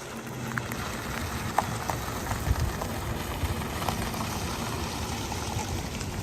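Storm rain and wind: a steady rush of noise with scattered small ticks of drops, over a steady low hum.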